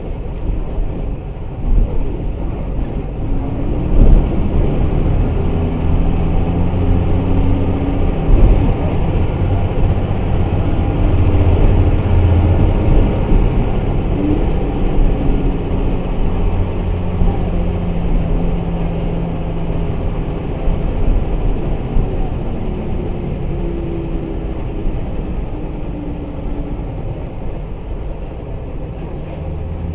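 Mercedes-Benz OF1214 city bus heard from inside, its diesel engine running under way with the note rising and falling as it pulls and eases off. Two loud thumps come about four and eight seconds in.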